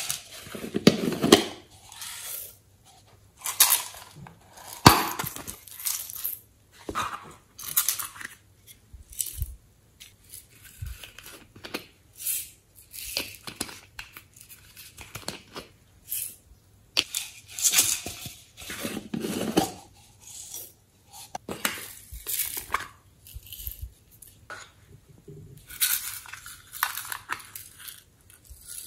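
Hands handling and opening small plastic novelty containers over a glass bowl: a run of separate clicks, taps and short rustling scrapes with pauses between.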